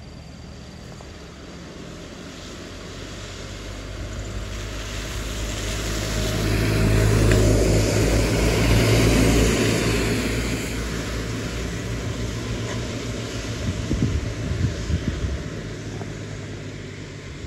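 ALS medium buses pass close by on a wet road: diesel engine running and tyres hissing on the wet asphalt, building to loudest about eight seconds in and then fading away.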